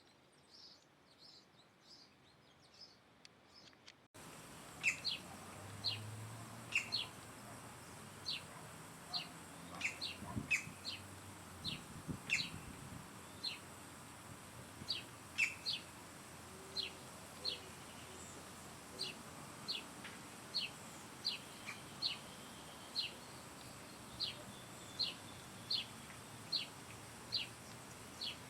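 A bird calling with short, high, downward-slurred chirps, repeated about once a second. The background hiss jumps up suddenly about four seconds in.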